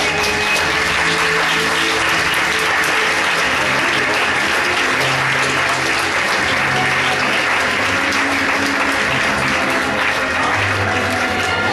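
Audience applauding, with recorded music playing underneath.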